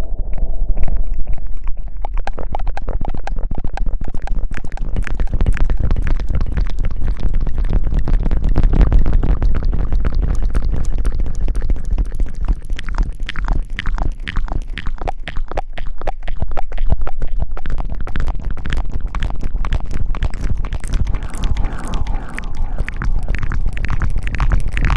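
Close-miked ASMR rustling and rubbing: dense, irregular crackling scratches over a heavy low rumble, starting right at the beginning.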